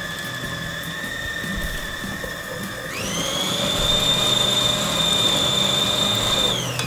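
Electric food chopper's motor running with a steady whine, jumping to a much higher pitch about three seconds in and winding down just before the end.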